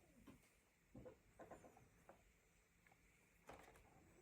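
Near silence with a few faint clicks and taps from a plastic RC model tractor being handled.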